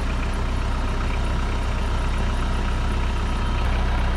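A large engine running steadily at low speed, as on a machine used to lift heavy parts, with a deep even hum that grows slightly louder near the end.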